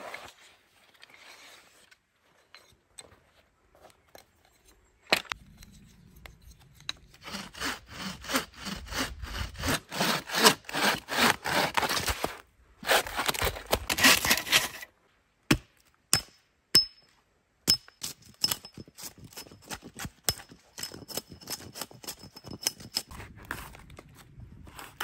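Wood being cut with a hand saw in quick strokes. One long spell is louder in its second half, with a short break. A few sharp clicks follow, then a second, lighter run of strokes near the end.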